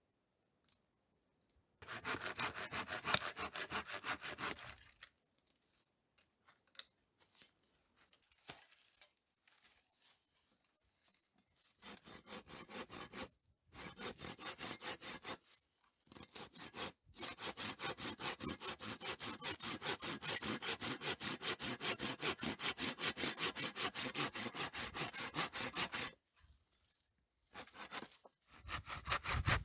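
Hand saw cutting wood in bouts of quick, even back-and-forth strokes, with pauses and a few light knocks between the bouts.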